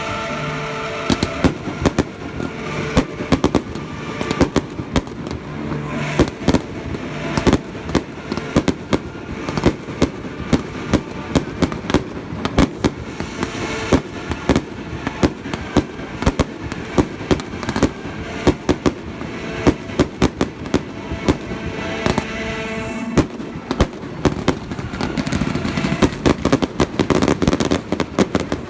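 Fireworks display: a steady barrage of shell bursts and crackling, several sharp bangs a second throughout.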